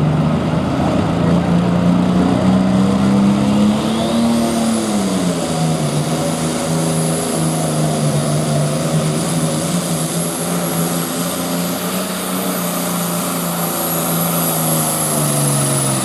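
Light pro class pulling tractor's engine running hard: its pitch climbs, dips about five seconds in as the tractor launches against the sled, then holds steady under load. A high whine rises about four seconds in and holds.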